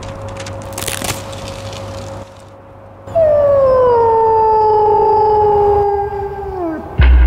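A wolf howls once: a long call that starts high, slides down a little and holds for about three and a half seconds, then falls away. Before it there is a steady low hum. Near the end comes a sudden low thump.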